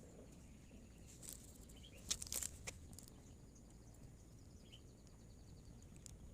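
Near silence: faint room tone with a few soft clicks about two seconds in.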